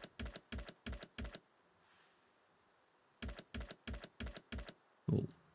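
Online video slot's reel-stop clicks: two quick runs of about seven even clicks, each as a free spin's reels land in turn.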